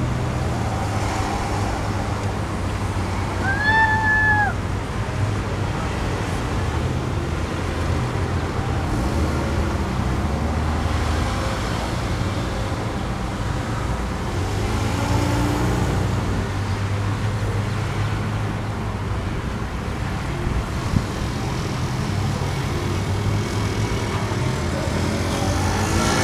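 Traffic passing on a multi-lane road: cars, SUVs and pickup trucks going by with a steady rumble of engines and tyres that swells as each vehicle passes, and one short horn honk about four seconds in.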